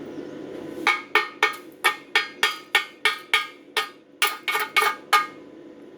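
A hammer tapping on metal: about fourteen quick, sharp strikes with a short ring, roughly three a second. They start about a second in and stop shortly before the end.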